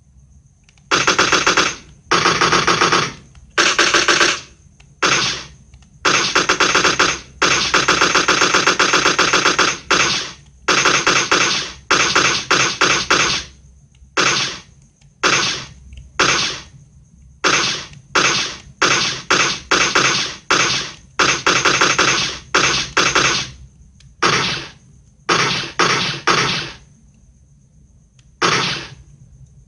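Automatic gunfire sound effect: some two dozen bursts of rapid fire, most under a second, the longest about three seconds, separated by short pauses.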